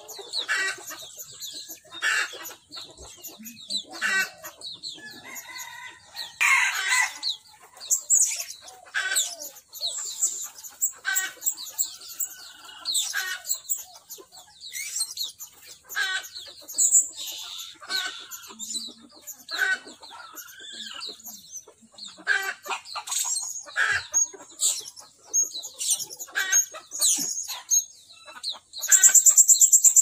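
Blue-crowned hanging parrots giving short, shrill, high-pitched chirps over and over, mixed with hens clucking and a rooster crowing. A loud, fast, shrill trill comes near the end.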